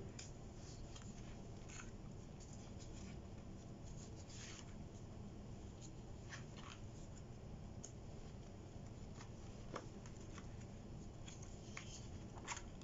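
Faint paper rustles and soft flicks as the pages of a spiral-bound planner are turned by hand, over a low steady room hum.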